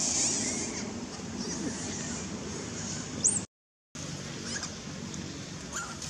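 Long-tailed macaques screaming: a loud high-pitched scream at the start, a sharp squeal about three seconds in, then a few shorter squeals near the end, broken by a brief dropout to silence.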